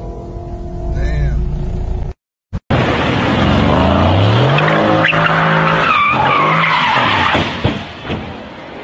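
A car engine running, then, after a half-second gap, a Mercedes sedan's engine revving hard with its tyres squealing as it slides out of control. Two sharp thuds near the end as it crashes into a roadside tree.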